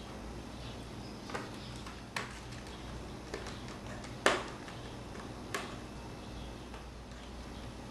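Five scattered clicks and taps of a laptop's plastic screen bezel and its screws being handled while the bezel screws are put back in, with one sharper knock about four seconds in, over a low steady hum.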